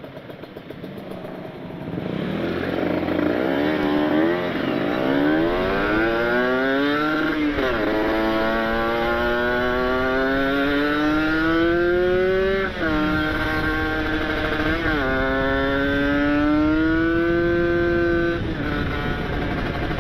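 Kawasaki Ninja RR two-stroke engine through an ABRT20 aftermarket exhaust, accelerating hard. Its pitch climbs with the revs and drops sharply at three gear changes. The throttle closes near the end.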